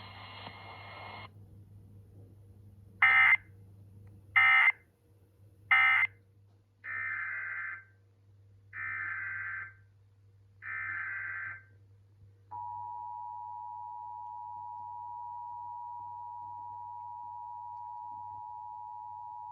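Emergency Alert System tones. First come three short, loud squawks of SAME digital data, the end-of-message code that closes a test. Then come three longer, quieter data bursts, the header of the next alert, and from about two-thirds of the way in, the steady two-tone EAS attention signal.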